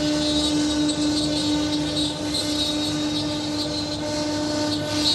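Double-head CNC wood router's spindles running steadily as the cutters carve a pattern into a wooden door panel: a steady whine with a rough cutting noise over it.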